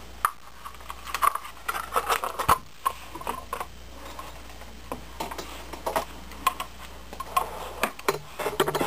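Irregular small clicks, taps and light rattles of hard plastic parts being handled at close range, as of a cheap desk lamp whose base has just come off being fiddled with and put back together.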